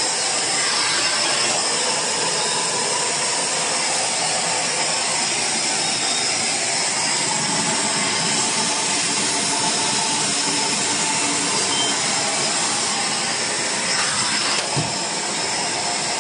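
Steam cleaner running with a steady, loud hiss.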